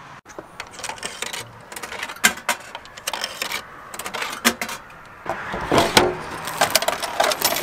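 Bread vending machine being worked by hand: a string of clicks, knocks and rattles from coins going into the slot, a button being pressed and the compartment mechanism, with a busier stretch of clunking about five to six seconds in.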